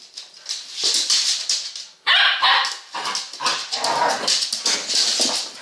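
A large dog and a puppy play-fighting, with a quick run of short barks and yips.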